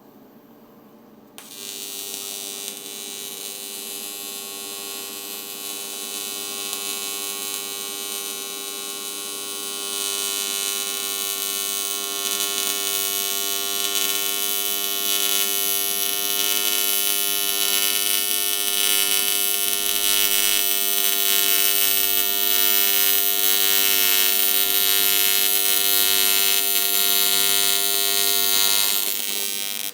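AC TIG welding arc buzzing steadily on quarter-inch aluminum at 200 amps, shielded with a 65/35 helium-argon mix. It strikes about a second and a half in and grows louder around ten seconds in. It cuts off suddenly near the end, when the filler rod runs out.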